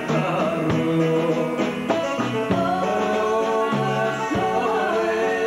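Live band playing a song on stage, with a singer's voice over the accompaniment.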